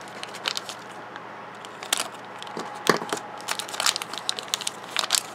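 Thin plastic wrapper crinkling and tearing as it is pulled open by hand, in irregular crackles with a few sharper snaps.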